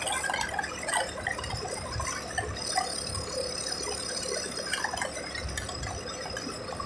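Car interior while driving: a low road and engine rumble, with scattered light rattles and clicks from the cabin.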